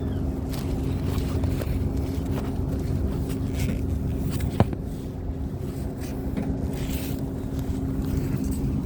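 A steady low mechanical drone with a constant hum, and one sharp metallic click about halfway through.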